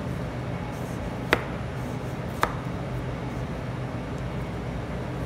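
A chef's knife cutting through a carrot onto a plastic cutting board: two sharp chops about a second apart, over a steady low hum.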